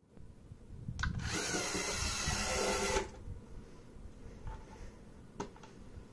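LEGO Mindstorms EV3 driving-base robot's two large motors driving the wheels: a whirring gear whine for about two seconds that cuts off suddenly as the robot stops, its color sensor having seen red. A click just before the motors start, and a light tap near the end.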